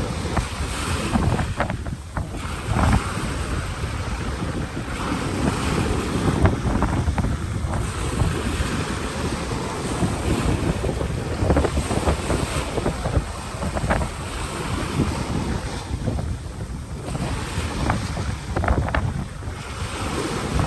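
Waves breaking and washing up on a beach in a continuous surging rush, with wind buffeting the microphone.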